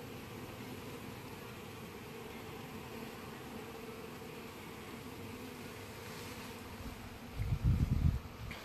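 Honeybees buzzing around an emptied package box, a steady hum of many wings. About seven seconds in, a brief loud low rumble.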